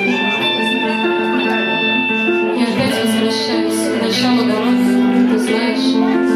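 Music: a band track with guitar playing held notes.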